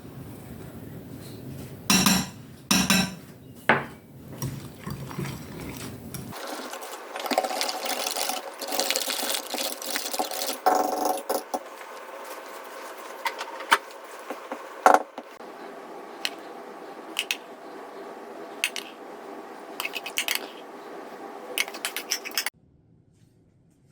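Kitchen utensils clinking, knocking and scraping against bowls and dishes during baking prep, with sharp knocks at irregular intervals. The sound changes abruptly partway through and drops off near the end.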